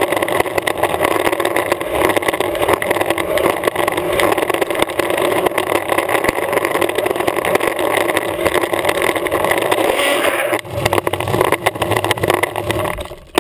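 Pintail longboard's wheels rolling fast on asphalt: a loud, steady, gritty roar. It shifts lower about ten and a half seconds in, then fades away near the end.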